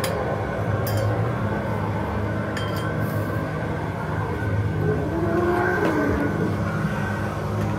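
A steady low hum runs throughout, with three short metal clinks in the first three seconds as a metal pole is handled in its square metal stand base.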